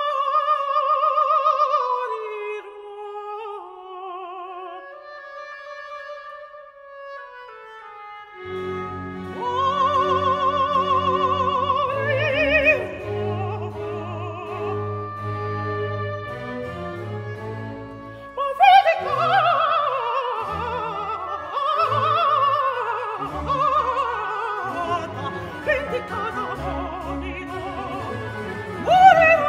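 Mezzo-soprano singing an opera aria: she begins alone with long held notes in wide vibrato, the first note sliding up into pitch. A string orchestra comes in softly underneath about a third of the way in, and the music grows fuller and louder from a little past halfway.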